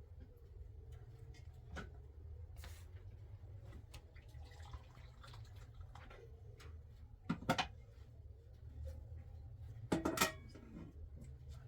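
Dishes and utensils being handled: scattered light clicks and knocks, with two louder clatters about seven and a half and ten seconds in, over a steady low hum.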